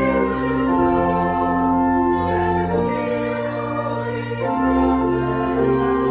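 Slow music of held chords that change every second or two over a moving bass line.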